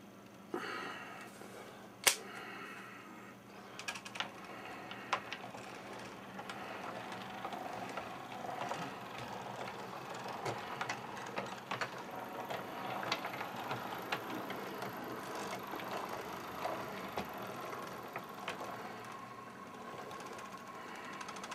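O scale model train running along the track: a steady mechanical whir of the motor and gears with scattered clicks from the wheels and track. A sharp click comes about two seconds in.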